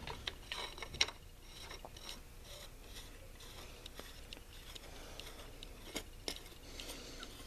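Faint, scattered clicks and light metallic clinks from a chainsaw being handled, its carburetor area being worked around.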